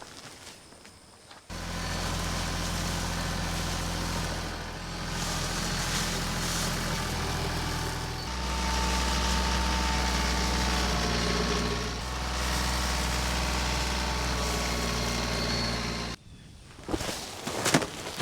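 Tractor engine running at a steady speed, with its pitch and load shifting a few times. It starts abruptly about a second and a half in and cuts off abruptly near the end.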